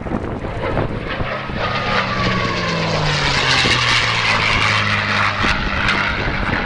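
P-51D Mustang's Packard Merlin V12 engine and propeller passing overhead: the engine sound comes in about a second in, drops in pitch and is loudest around the middle.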